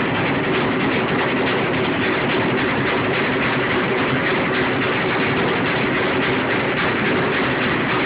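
Top-loading washing machine running loudly: a steady, unbroken mechanical whirr with a constant low hum under it.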